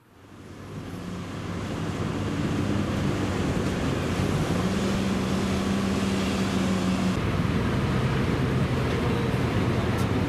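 Tour bus engines idling with a steady low hum over a broad rush of wind noise, fading in over the first two seconds. The hum shifts about seven seconds in.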